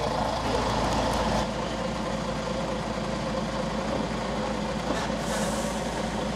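Semi truck's diesel engine running steadily, its note dropping slightly about a second and a half in, with a short hiss about five seconds in.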